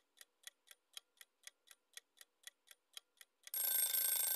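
Countdown-timer clock-tick sound effect, about four even ticks a second. About three and a half seconds in the ticking stops and a louder, hissy sound with steady high tones takes over, lasting about a second.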